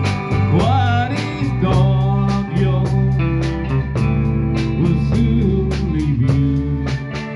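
Music: a song with strummed plucked-string chords and a singing voice over them.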